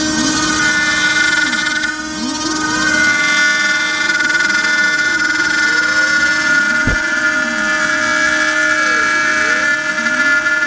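DIY CNC router cutting a circle in MDF. The spindle gives a steady high whine while the axis motors' pitch rises and falls over and over as the head changes speed around the circle. There is a single sharp click about seven seconds in.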